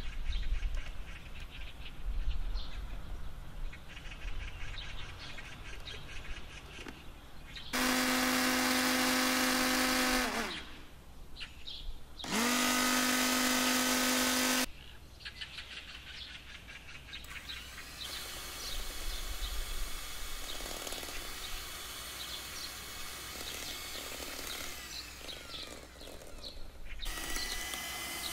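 Electric mini food chopper running in two bursts of about two and a half seconds each, puréeing mango chunks. The motor hum rises in pitch as it spins up and falls as it stops. Near the end an electric hand mixer starts whipping cream.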